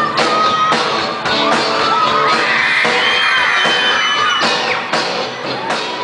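Live rock band playing loud through the stage sound system, with a steady drum beat of about two hits a second and a pitched line gliding up and down over it.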